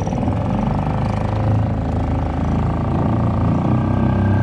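Suzuki DF2.5 single-cylinder four-stroke outboard motor being throttled up from idle and running steadily, getting a little louder. The new motor has just passed its 15-minute idle break-in period.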